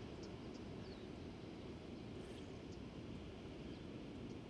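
Faint, steady, low outdoor background rumble with a few tiny faint ticks.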